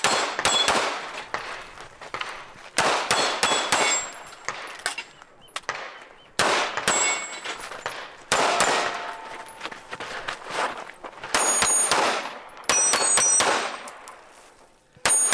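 Pistol shots fired in quick strings at steel targets, the steel plates ringing with a high metallic clang as they are hit. There are short pauses between strings.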